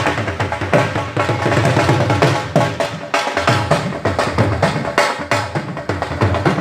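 Music with fast, dense drumming over a sustained melody line.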